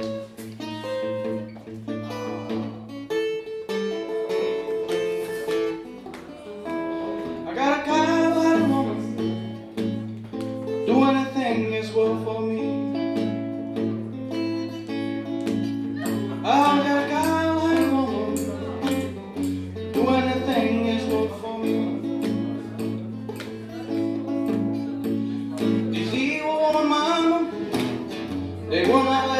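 Acoustic guitar played live with a man singing into a microphone. The guitar alone carries the first several seconds, then sung phrases come in about eight seconds in and recur over steady chords.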